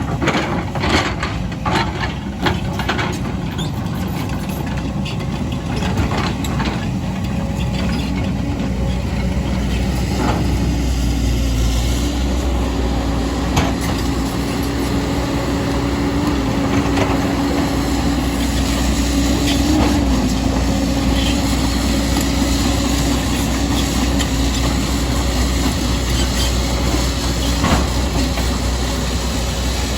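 Heavy diesel construction machine engine running steadily, with a series of sharp clanks and knocks over the first several seconds.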